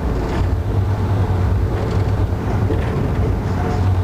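Steady low rumble of a moving passenger train heard from inside the coach: wheels running on the rails with constant running noise.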